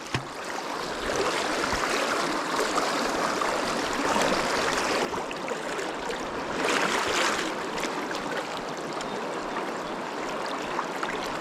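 Fast river current rushing, a steady wash of moving water with a few brief louder swells.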